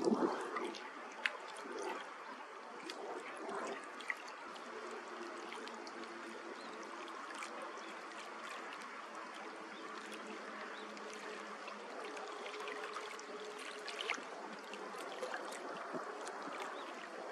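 Small waves lapping and trickling against rocks at the water's edge, with scattered little splashes and clicks and a louder splash right at the start. A faint low hum comes in about five seconds in and fades out around thirteen seconds.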